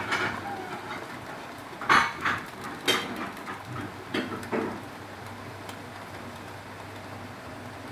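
Foil-wrapped tilapia grilling over an open gas flame, giving a few irregular pops and crackles in the first half, then only a steady low hum.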